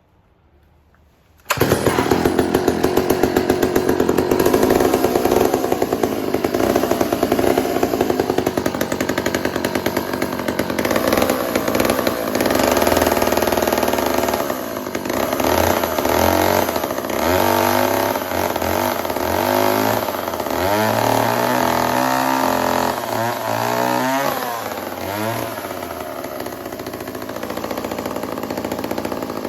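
1968 Farmcrest two-stroke chainsaw starting suddenly about a second and a half in and running fast. Through the middle it is revved up and down over and over, then it settles to a steadier, lower speed near the end.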